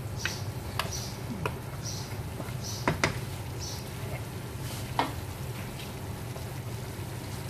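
Pork ribs frying in a nonstick wok while a wooden spatula stirs and scrapes them in short strokes for about four seconds. Sharp knocks of the spatula on the pan come as a quick pair about three seconds in and once more about five seconds in, over a steady low hum.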